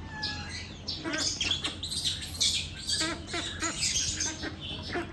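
Domestic ducks quacking: many short, overlapping calls, starting about a second in.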